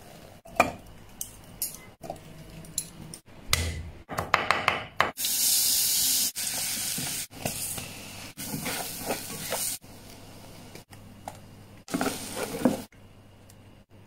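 Kitchen sounds cut together: a few sharp knocks of metal tongs on charcoal, then hot oil sizzling loudly as minced garlic goes into it, in two stretches of steady hiss about two seconds each, with bowl-and-spatula clatter near the end.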